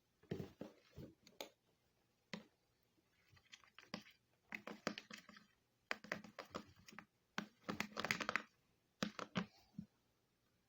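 Slime being worked, giving irregular clusters of short sticky clicks and crackles with brief pauses between them.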